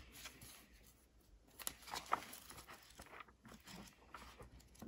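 Pages of an old hardcover book being turned by hand: a few faint, soft paper rustles and swishes.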